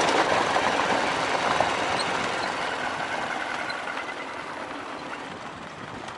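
Motorcycle riding along a loose gravel track: the engine running under a dense rush of wind and tyre noise on the stones, growing gradually quieter through the stretch.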